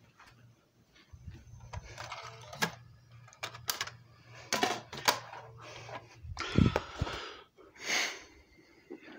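Handling noise from a phone being moved about: scattered clicks, knocks and rustles, over a low steady hum that stops about six seconds in.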